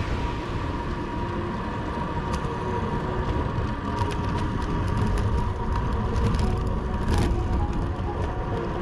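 Background electronic dance music with sustained synth tones over a steady low rumble, with no singing in this stretch.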